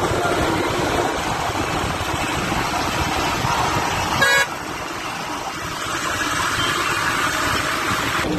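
Steady engine and road noise of moving vehicles, with one short horn toot about four seconds in.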